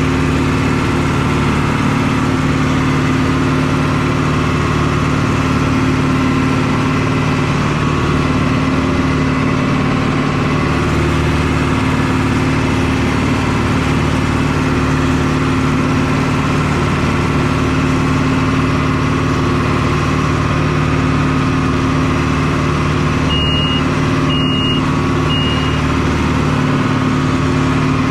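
Tractor engine running steadily while pulling and driving a Vermeer round baler. About three quarters of the way through, three short, high electronic beeps sound in a row.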